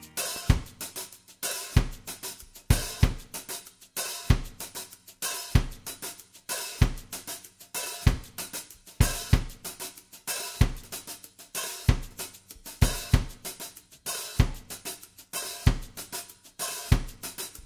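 Background music in a drums-only passage: a drum kit playing a steady beat with bass drum, snare and hi-hat.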